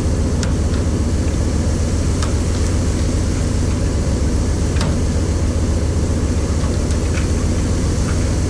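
Fishing boat's engine running steadily with a loud low rumble and a rush of water, with a few sharp clicks or knocks scattered through it.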